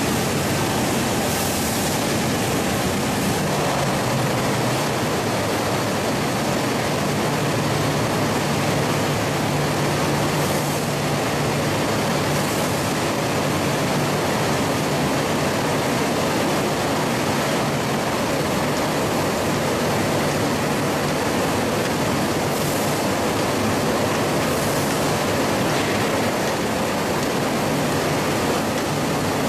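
Poultry slaughter line machinery running: a steady, dense noise with a low motor hum underneath, and a few brief hisses every several seconds.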